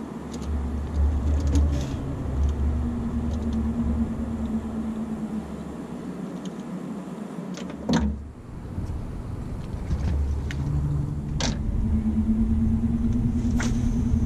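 Wind rumbling on the microphone on an open boat, with a steady low hum that fades in and out and three sharp clicks, the loudest about eight seconds in.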